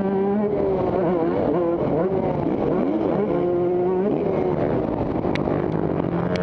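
Motocross dirt bike engines revving up and down, several overlapping, their pitch climbing and dropping repeatedly with brief steady stretches. A couple of sharp clicks come near the end.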